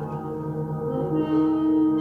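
Background music of sustained, ringing tones, with a new note coming in about a second in.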